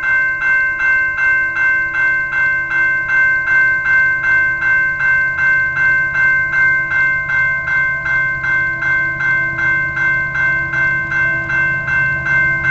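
Railway level-crossing warning bell ringing at a steady pace, about three strikes a second. Underneath, a low rumble from the approaching train grows louder near the end.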